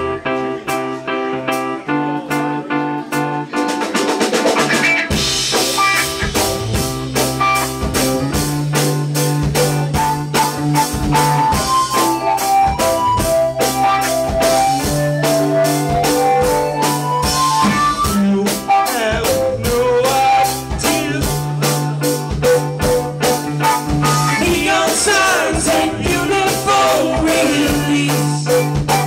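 Live rock band playing a song: electric guitar and keyboards over a bass line, with the drum kit coming in on a fill about four seconds in and then keeping a steady beat. A melodic lead line climbs through the middle.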